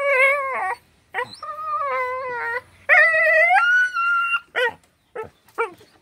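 A dog howling and whining in three long drawn-out calls, the third jumping higher in pitch partway through, then a few short yips near the end: excited greeting vocalising while being petted.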